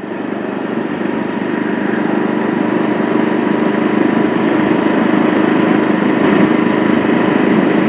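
Bajaj Avenger 160 Street motorcycle under way: steady engine running mixed with rushing wind noise, growing louder over the first couple of seconds and then holding steady.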